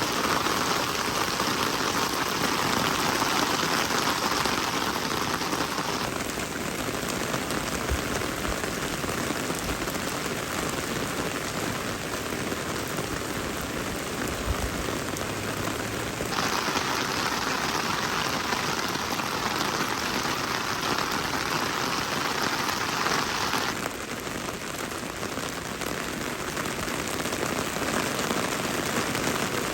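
Steady rain falling. The hiss switches abruptly between a brighter, heavier sound and a softer one, twice.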